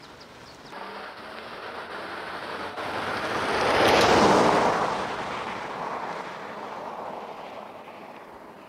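A car passing by: the rush of its tyres and engine swells to a peak about four seconds in, then fades as it drives off.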